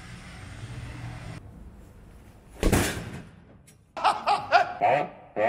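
A low outdoor hum that cuts off abruptly, a single loud hit about halfway through, then a man laughing loudly and manically in short repeated bursts, about three to four a second, from a film clip.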